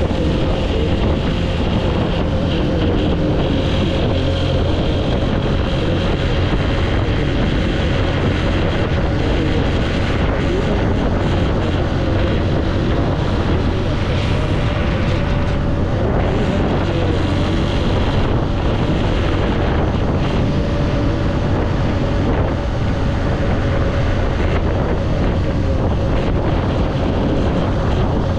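Honda CG 125's single-cylinder four-stroke engine running at a steady pace while riding, with wind rushing over the microphone.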